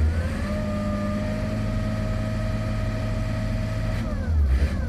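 Diesel engine of an XCMG mining dump truck, heard from the cab, brought up from idle to a higher steady speed in the first half-second with a rising whine, held there, then dropping back to idle about four seconds in. It is being run to build up air pressure, which the truck's brakes and gearshift need before it can move.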